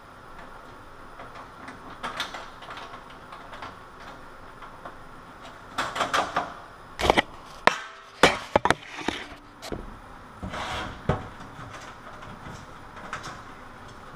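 Handling noise from a sheet-metal range hood as a strain relief connector is twisted into its knockout hole: scattered knocks and clatters, with a cluster of sharp knocks about six to nine seconds in and another about eleven seconds in.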